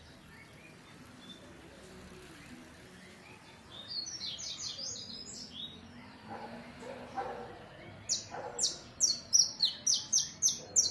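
A songbird singing: a short cluster of high chirps about four seconds in, then a louder run of quick downward-sweeping notes, about two a second, through the second half.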